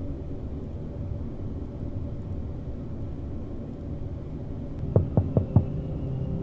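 A steady low hum, with four quick thumps in a row about five seconds in.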